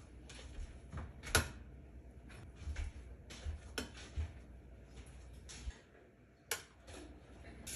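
Stainless steel bowls and a tumbler clinking and knocking as they are set down on a steel thali: a handful of short, sharp clinks spread out, the loudest about a second and a half in.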